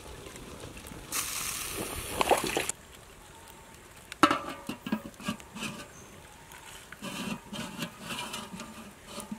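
Sauce poured from a bottle onto a turtle on a plate in a steel wok, a short liquid trickle and splash that cuts off abruptly. About four seconds in, a domed metal lid is set on the wok with a sharp clank, followed by lighter metal knocks and rattles as the lid is adjusted.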